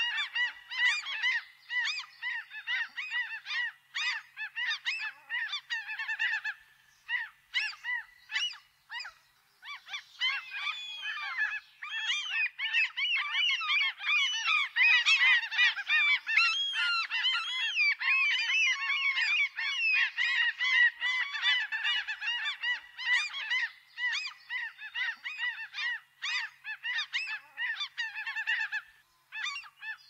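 A flock of gulls calling, many squawking calls overlapping. The chorus thins to a few separate calls for a few seconds near the first third, then swells into a dense chorus again.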